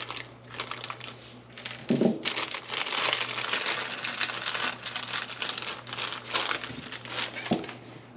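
Crinkling and rustling of something being handled, with a low thump about two seconds in and another near the end, over a faint steady low hum.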